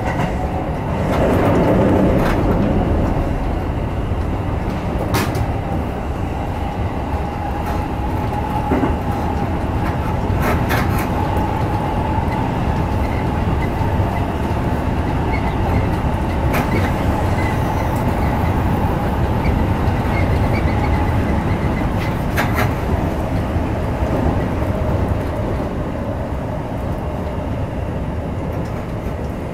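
Yellow electric commuter train running on the rails, heard from inside the front car: a steady rumble with a faint whine and a few sharp clicks. It grows quieter near the end as the train slows into a station.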